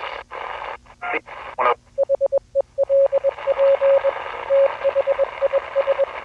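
Radio static hissing and cutting in and out, then about two seconds in a single steady beeping tone starts keying out Morse code in short dots and longer dashes over a fainter hiss.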